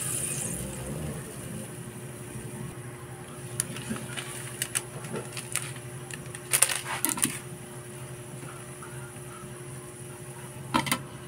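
A metal ladle stirs broth and okra in an aluminium wok at the start, then the broth simmers on a gas burner with scattered pops and clicks over a steady low hum.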